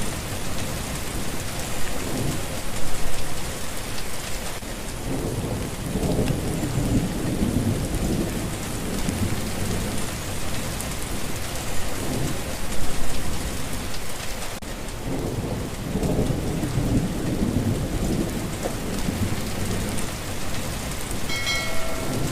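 Steady heavy rain falling on a street, with long low rumbles of thunder about five seconds in and again about fifteen seconds in.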